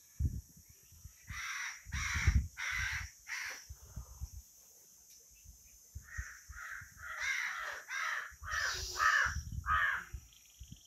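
A bird calling repeatedly: four calls in quick succession starting a little over a second in, then a longer run of about seven calls from about six seconds in. Low rumbling bumps sound underneath.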